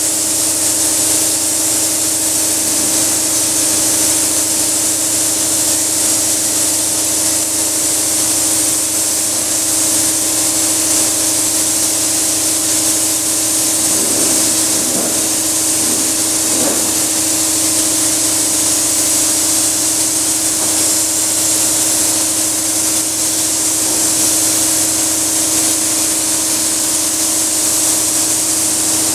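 Paint spray gun hissing steadily as it sprays thick polyester primer, with a steady low hum underneath.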